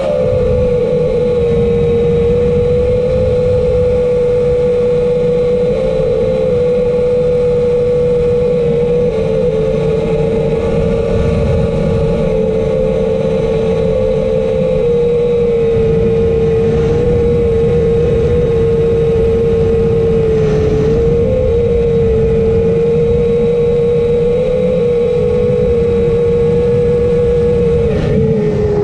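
Propeller motor of a camera-carrying remote-controlled aircraft running at a steady cruise, a constant hum whose pitch wavers only slightly, with wind rushing over the onboard microphone.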